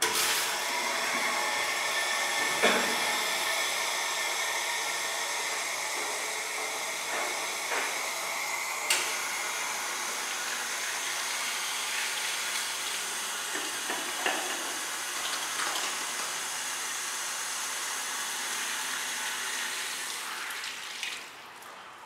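Water running from a wall tap into a ceramic trough sink, with hands rinsing under the stream. It starts abruptly as the tap is turned on, and two sharp knocks stand out about three and nine seconds in.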